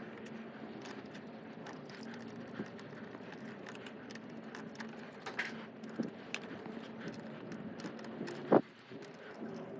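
Light metallic clinking and rattling of tools and small bicycle parts being handled, with one sharp click about eight and a half seconds in, over a steady low hum.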